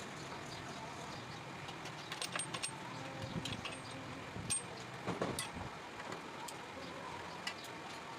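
A vehicle running, with irregular metallic clinking and rattling in clusters about two and five seconds in. This is the clutch box noise under examination.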